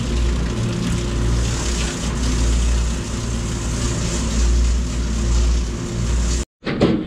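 A boat's engine runs steadily at slow trolling speed, a low hum under wind and water hiss. Near the end the sound drops out for a moment, and a short loud noise follows.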